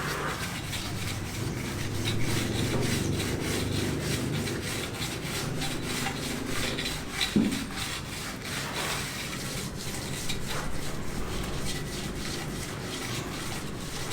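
Repeated rubbing or scraping strokes of hand work, such as sanding or rasping, going on steadily at an even rhythm. There is one louder knock partway through.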